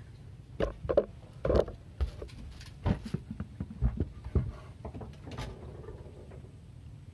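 Irregular knocks and thumps, about a dozen spread over several seconds, of a person shifting about and handling gear in a wooden boat.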